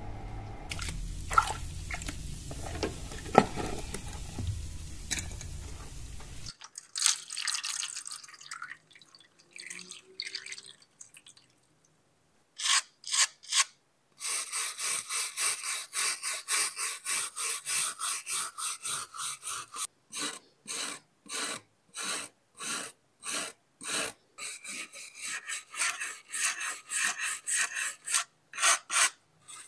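Rhythmic back-and-forth rasping strokes of hand abrasion on a knife blade, about two a second, with brief pauses between runs. Before that, a steady hiss with two sharp clicks in the first few seconds.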